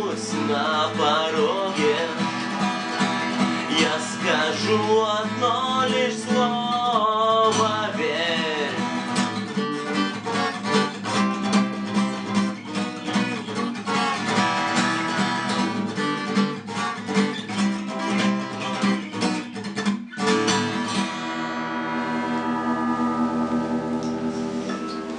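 Acoustic guitar strummed with a man singing over the first several seconds, then the guitar alone carrying the outro. A brief break comes about twenty seconds in, then a final chord rings out and fades.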